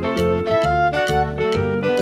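Upbeat background music: pitched melody notes over a bass line and a steady beat.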